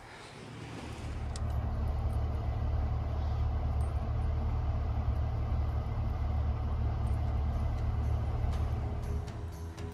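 Pickup truck engine running with a steady low rumble, heard from inside the cab. It builds up over the first second or two and then holds steady.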